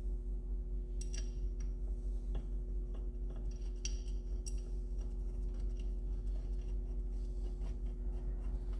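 A few light, sharp metallic clicks and clinks of small parts being handled while a transmission bearing retainer and gasket are fitted, over a steady low hum.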